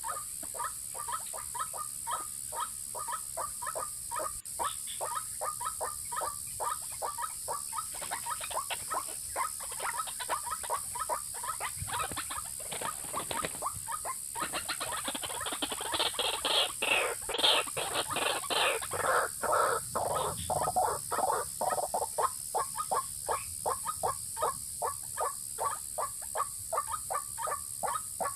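White-breasted waterhen calling: a long run of rapid, repeated croaking notes at about four a second, louder and harsher for several seconds in the middle.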